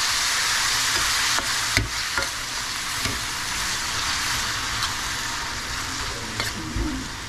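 Diced tomatoes and onions sizzling in oil in a stainless steel pan as they are stirred with a spatula, which scrapes and clicks against the pan now and then. The sizzle eases a little after about a second and a half.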